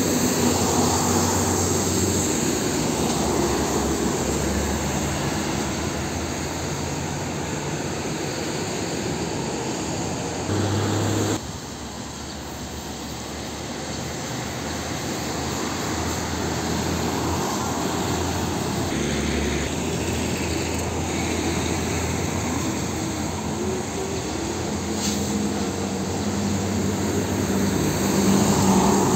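Heavy diesel tanker trucks driving past on a wet road: a steady mix of engine drone and tyre noise. The sound changes abruptly about eleven seconds in, at a cut to another truck.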